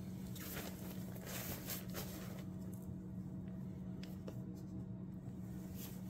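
Tent fabric rustling and scratching under a hand working over the stove jack patch. The rustles come thickly in the first couple of seconds, then only a few faint ones, over a steady low hum.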